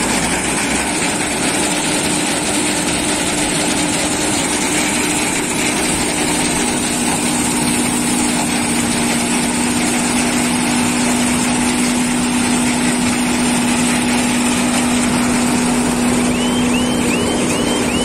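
John Deere W70 combine harvester running steadily under load as it threshes mustard, its engine and threshing drum making a loud, even drone with a steady low hum.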